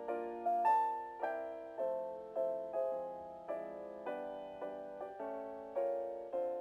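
Background piano music: a gentle melody of notes and chords struck about twice a second, each one fading away before the next.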